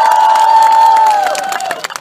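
Crowd cheering, with several high voices rising into long held shouts that fade out after about a second and a half.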